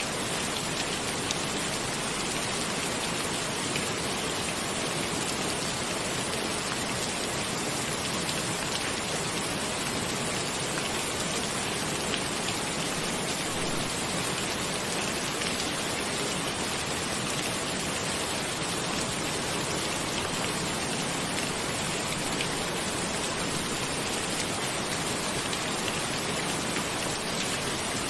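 Steady rain falling on a cabin: an even hiss with faint, scattered drop ticks.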